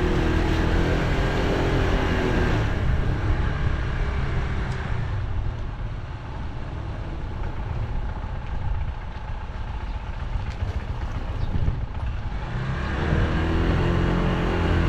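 Honda ADV scooter engine running under way, with road and wind noise. The engine note drops away about three seconds in and comes back strongly near the end.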